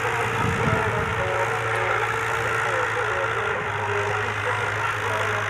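Tractor diesel engine running steadily under load as it pulls a disc harrow through dry soil, its note dropping slightly about two-thirds in. Music from the tractor's tape player plays over it.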